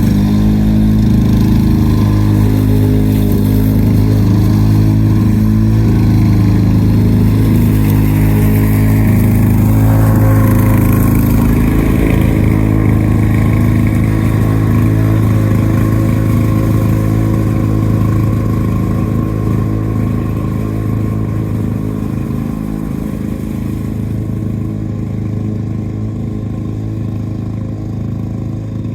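Two-stroke Lawn-Boy push mower engine running steadily, growing somewhat quieter in the last third.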